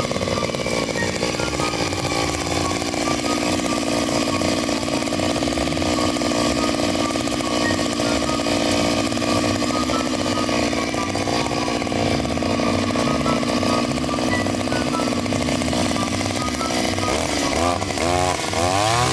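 Ryobi 143R backpack brush cutter's two-stroke engine running steadily, then revved up and down a few times near the end as the cutter goes into a clump of reeds.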